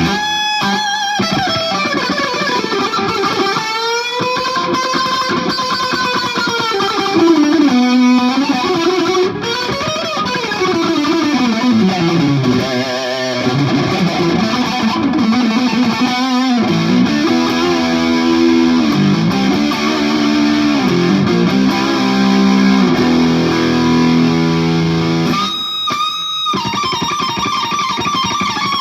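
PRS Singlecut electric guitar played through an OCD overdrive pedal into a Marshall JCM2000 amp and 2x12 cabinet: an overdriven lead with held notes that swoop up and down in pitch. There are short breaks in the playing near the start and at about 8, 16 and 26 seconds.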